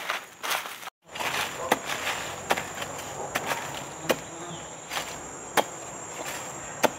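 Long-handled digging spade striking hard, dry soil, sharp hits about once a second, over a steady high insect buzz.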